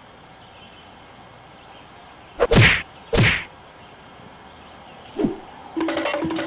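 Two loud whooshing strikes, fight-scene hit sound effects, about two and a half seconds in and again under a second later, each sweeping down from hiss to thud. A short thud follows, then rhythmic percussive music with a repeating two-note figure starts near the end.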